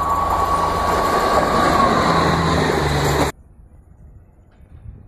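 WAG-7 electric locomotive sounding its horn in one long steady note over the rumble of the approaching train. The note sags and fades about two seconds in, and the whole sound cuts off abruptly a little past three seconds, leaving only quiet background.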